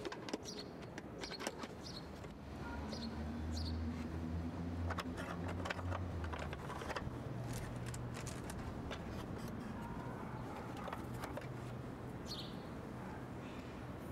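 Scattered short bird chirps over a low background hum, with light clicks and taps of small objects being handled.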